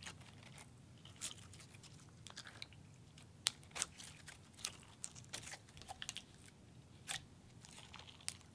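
Lilac clear Crayola slime with gold glitter, stiff and putty-like, being stretched and squeezed by hand, giving faint, irregular sharp clicks and crackles.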